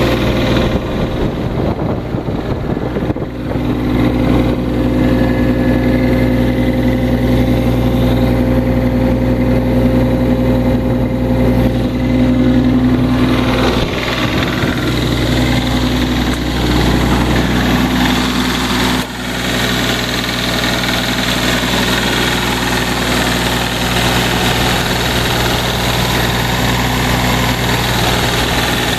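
Diesel engine of a 2002 Schaeff HR12 mini excavator running steadily, with a steady whine over it through the first half and a brief dip in level about two-thirds of the way in.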